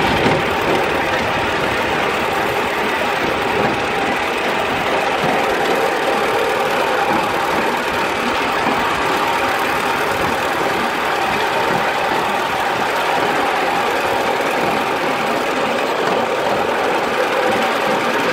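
Polly 2 miniature live-steam locomotive running steadily, heard close from the riding truck behind it: continuous quick chuffing from the exhaust mixed with the rattle of wheels on the rails.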